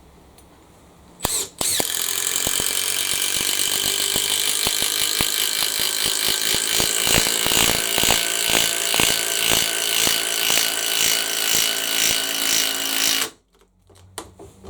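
Cordless impact driver driving a long galvanized batten screw into timber: a short blip, then about twelve seconds of continuous running with rapid hammering impacts, ending abruptly. The screw is driven in hard enough to split the timber open.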